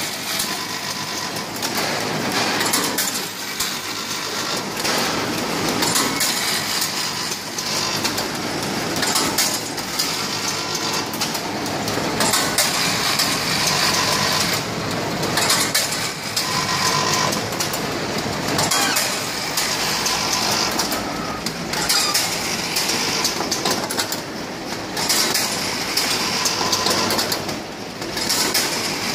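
Automatic noodle packing machine running, with a continuous irregular clatter and clicking of its moving metal parts.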